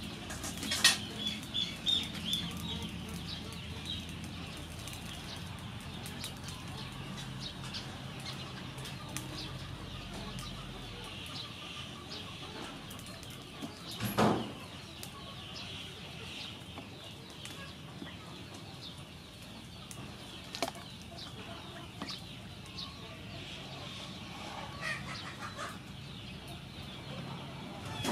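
Chickens clucking and small birds chirping in the background. A single sharp knock, a spoon striking the steel cooking pot while stirring, comes about fourteen seconds in.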